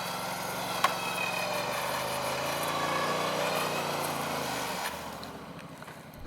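Off-road vehicle engine revving up and then easing back down, with a single sharp click about a second in; the engine fades away near the end.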